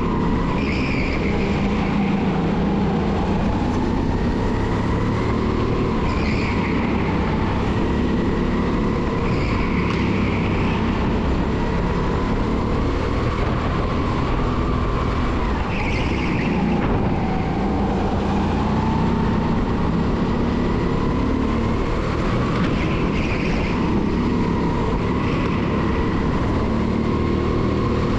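A 270cc kart engine running hard on a lap, its pitch rising and falling as the throttle comes on and off through the corners. Brief tyre squeals come in the corners every few seconds.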